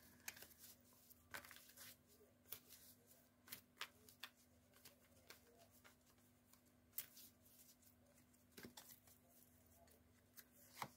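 Near silence with faint, scattered rustles and clicks of oracle cards being handled, several seconds apart, over a faint steady hum.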